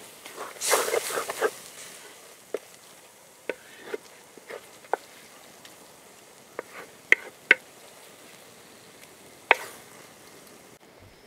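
Wooden spatula stirring a flower-and-spice mixture in a clay pot: a burst of scraping about a second in, then scattered sharp knocks of the spatula against the pot over a low sizzle.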